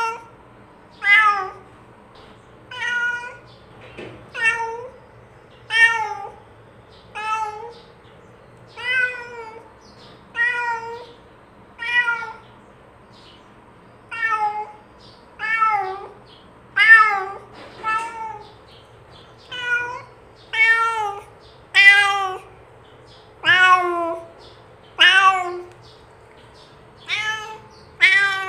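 Domestic cat meowing over and over, about one meow every second and a half, each call rising and then falling in pitch.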